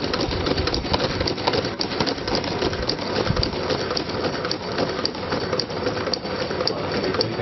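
Makeblock-built switch test machine running: its motor-driven mechanism pressing module switches over and over, making a steady clatter of rapid, irregular clicks over a mechanical hum.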